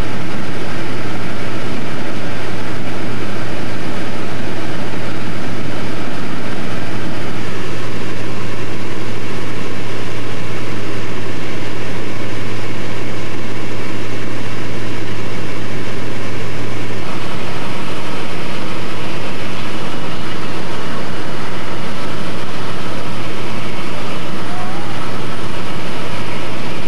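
Light aircraft's engine and propeller droning steadily inside the cabin: a loud, even roar with a constant deep hum underneath.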